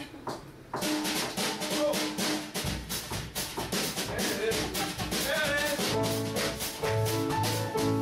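A small jazz combo of piano and drum kit starting a song: a few evenly spaced clicks of a count-in, then under a second in the band comes in together, the drums keeping a busy cymbal beat under piano chords.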